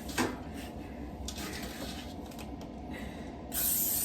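A short knock just after the start, then, about half a second before the end, an aerosol can of cooking spray begins a steady hiss as non-stick oil is sprayed onto a baking tray.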